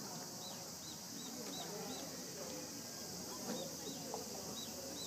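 Open-air ambience at a sports ground: faint distant voices over a steady high hiss, with a short high chirp repeating about three times a second.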